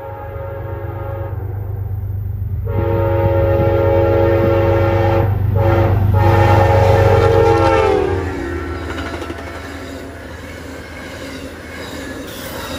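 Passenger train at about 78 mph. The GE Genesis diesel locomotive's chime air horn finishes one long blast, then gives a long, a short and a final long, the grade-crossing signal, over a heavy engine rumble. The horn chord drops in pitch as the locomotive passes, and the stainless-steel passenger cars then rush by with rail clatter.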